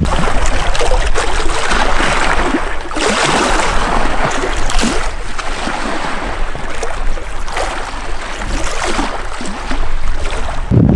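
Choppy water splashing and lapping against a small boat, coming in uneven surges.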